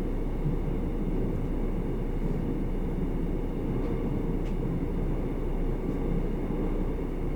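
Seoul Metro Line 9 subway train running between stations, heard from inside the car: a steady low rumble with a faint high whine above it.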